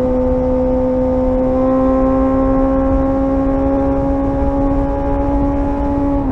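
Suzuki GSR 600's inline-four engine running under way, its pitch climbing slowly and steadily, with a short dip near the end, over a low rumble of wind noise.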